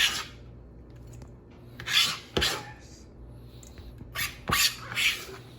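Knife chopping and scraping on a cutting board through chopped coriander and mint, a few short strokes in irregular clusters.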